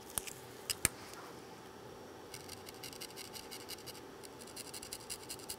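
A small hand tool scratching corrosion off a MacBook Air logic board in quick short strokes, starting about two seconds in after a few light clicks.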